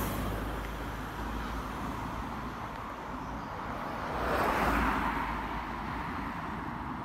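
Cars passing close by on a road, their tyres and engines heard: one fading away just after the start, and a second swelling to its loudest about four and a half seconds in, then fading.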